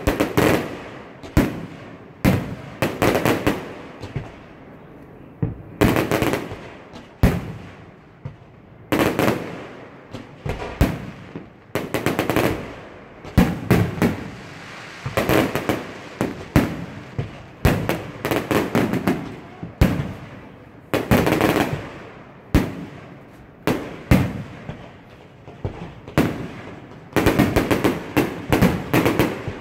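Aerial fireworks shells bursting one after another, sharp booms each trailed by crackling, in clusters every second or two, with a fast volley of bursts near the end.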